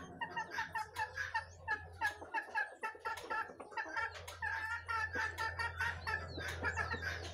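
Chickens clucking in a quick run of short calls, about three a second, with sharp high-pitched bird chirps over them and a low steady hum underneath.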